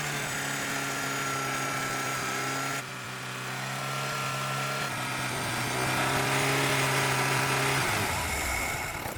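Restored Nissan engine running steadily, picking up speed and getting louder past halfway, then winding down near the end.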